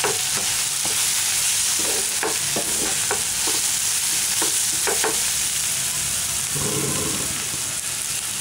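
Onion-tomato masala with spice powders sizzling in oil in a nonstick frying pan, a steady high hiss. A wooden spatula stirs it, scraping and tapping against the pan in short, irregular strokes during the first five seconds or so.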